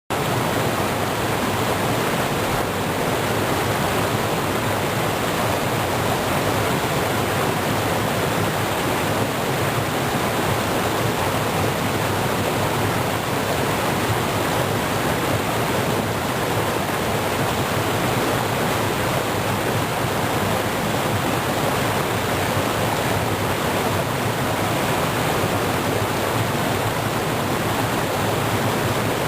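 Fast-flowing river water rushing steadily, an even, unbroken rush with no change throughout.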